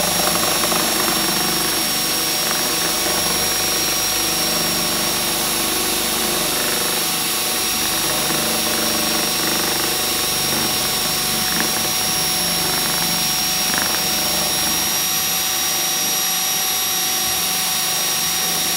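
Cordless drill running at high speed with a steady whine, spinning a balsa wood rocket body while sandpaper on a sanding block is held against it, with a rough rasp of sanding under the whine.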